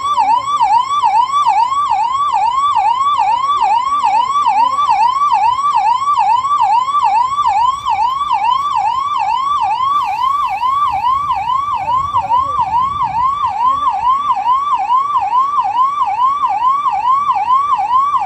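Fire engine siren sounding loudly in a fast yelp, its pitch sweeping up and down about twice a second without a break.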